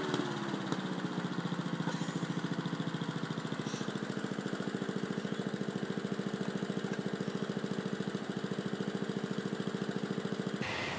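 Small petrol lawn mower engine dropping from higher revs to a steady idle, with a quick, even firing pulse. The sound cuts off abruptly near the end.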